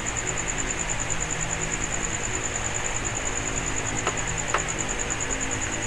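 Two faint clicks of small plastic parts being handled, about four seconds in and half a second later, over a steady hiss and hum with a high, fast-pulsing thin tone running throughout.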